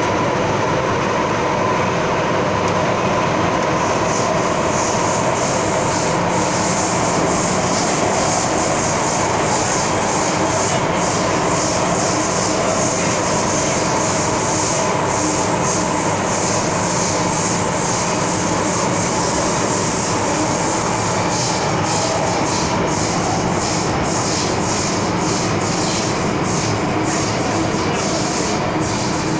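MTR Metro-Cammell M-Train (Tsuen Wan Line EMU) running at speed through a tunnel, heard from inside the passenger car: a loud, steady rumble of wheels, motors and tunnel air. A high hiss joins about four seconds in, and a rapid patter of rail clicks comes in near the end.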